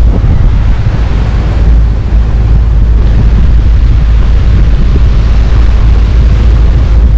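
Strong wind buffeting the camera microphone: a loud, continuous low rumble that swells and dips.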